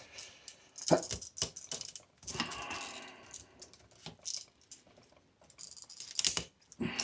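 Hand cutters snipping and clicking through the copper windings of a washing machine motor: irregular sharp clicks, with a short scraping stretch a couple of seconds in.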